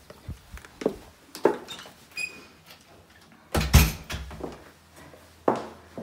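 A uPVC door being opened and shut: handle and latch clicks, a short squeak about two seconds in, and a heavy thud a little past halfway, the loudest sound, as the door closes, followed by scattered knocks of movement.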